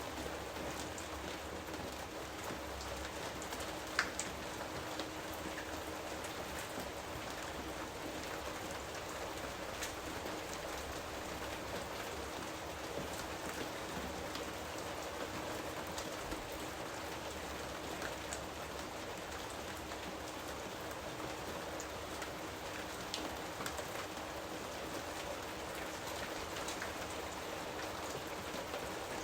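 Steady rain falling, an even hiss with scattered drop ticks and one sharper tick about four seconds in.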